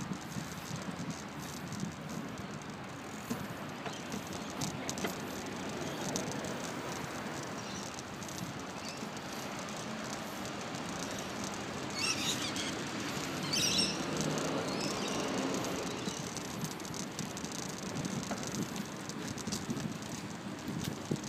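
Steady rustling outdoor noise of a phone camera moving along a path, with scattered small clicks and two short high chirps about twelve and thirteen and a half seconds in.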